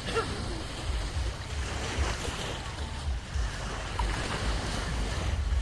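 Surf washing on a beach with wind gusting on the microphone, a rumbling buffet underneath.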